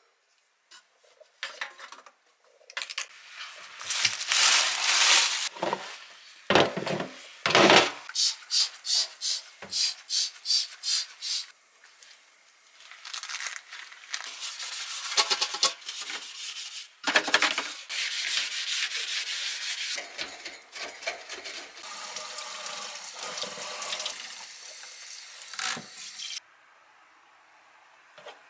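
Repeated rubbing or scrubbing strokes, with a quick run of about two strokes a second near the middle, giving way to a steadier rushing sound later on.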